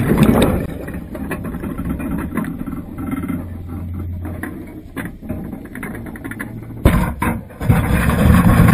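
Underwater audio from a GoPro in its waterproof housing as it sinks inside a crab ring. It opens with a rush of bubbles as the camera goes under, then settles into a muffled, low rumble of water against the housing. About seven seconds in there is a sharp knock, followed by louder rumbling and knocking.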